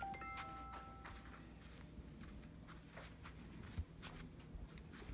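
A few light clinks with short, clear ringing tones right at the start, then faint soft footsteps of sock feet on carpet.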